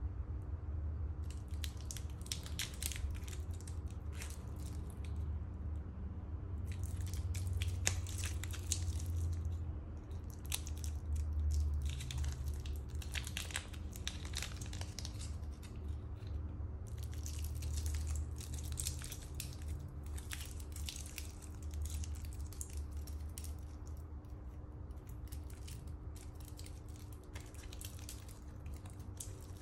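Plastic protective film crinkling and crackling as it is handled and peeled off a watch's bracelet links, in several stretches of a few seconds each, over a steady low hum.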